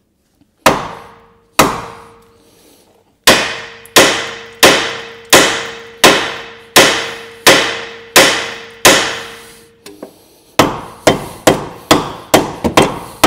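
Hammer blows struck through a block of wood onto a seized ball joint stud on a car's front hub, trying to drive it out: two single blows, then a steady run of about one blow every 0.7 s, each ringing, then quicker, lighter blows about three a second near the end. The stud is tight and will not shift.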